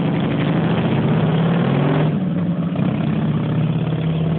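Harley-Davidson V-twin motorcycle engine pulling away close by and riding off. Its note turns duller and a little quieter about two seconds in as the bike moves away.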